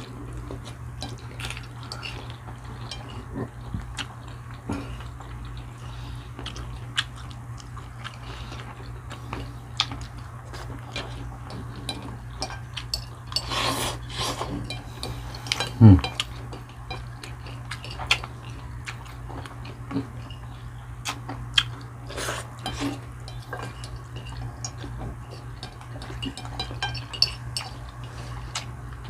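Cutlery clinking and scraping on plates during a meal, in many scattered small clicks over a steady low hum. A short falling voice sound comes about halfway through.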